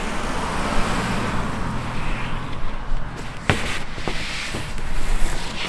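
Street ambience with a vehicle running, a steady low rumble under a haze of noise, and one sharp knock about three and a half seconds in as a sheet of MDF is lifted off the stack.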